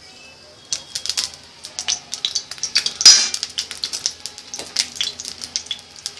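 Hot oil crackling and spitting in a kadhai, a fast irregular run of sharp ticks, with a louder sizzling burst about three seconds in and light scrapes of a metal spatula against the pan.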